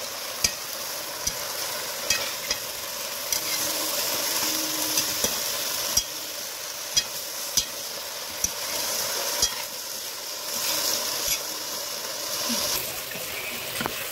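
Chopped taro leaves and stems with corn and beans sizzling as they stir-fry in a hot wok, with a steady hiss. A metal spatula scrapes and knocks against the pan in sharp, irregular clicks about once a second.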